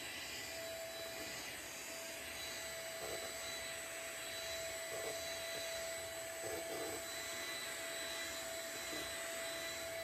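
Britânia 1250 W stick vacuum cleaner running steadily: a constant high motor whine over rushing airflow, swelling briefly a few times as its floor nozzle is pushed over a shaggy rug.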